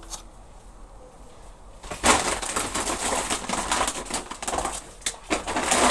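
A shopping bag rustling and crinkling as it is rummaged through, starting about two seconds in and lasting about three seconds, with a couple of sharp knocks near the end.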